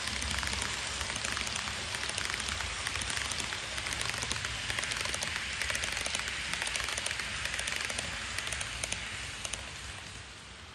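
HO-gauge model passenger train rolling past on the track: a dense, fine rattle of its metal wheels on the rails, like rain, that fades away near the end as the last cars go by.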